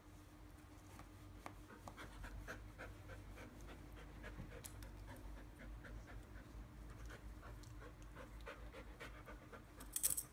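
A dog panting quickly and rhythmically, about three breaths a second. There is a brief, louder rattle near the end.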